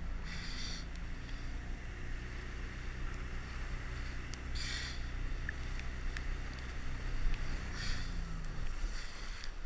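Inflatable boat's outboard motor running steadily underway, with the rush of wake water and wind, and three short hissing bursts; a low engine tone dips in pitch near the end.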